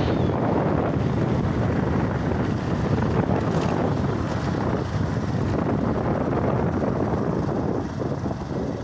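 Wind buffeting the microphone over the rumble of a ride along a rough road, easing off near the end.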